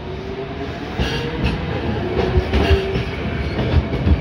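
A Toyohashi Railway streetcar passing close at low speed. Its wheels rumble and clack over rail joints, with a few sharp knocks.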